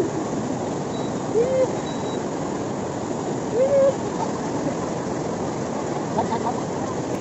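Steady rush of shallow, foaming water flowing and breaking around the wader's legs. A voice cries out briefly twice, about a second and a half in and again near four seconds.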